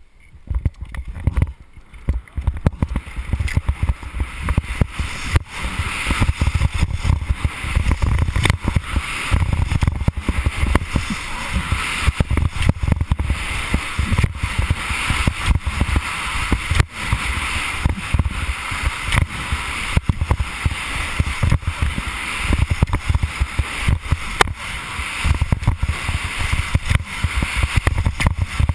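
Fischer race skis carving hard-packed snow at speed through giant slalom gates: the edges scrape and hiss, swelling with each turn about every one and a half to two seconds, with short clattering hits and a low rumble of wind on the helmet microphone. It starts quietly as the skier pushes off and builds within the first few seconds.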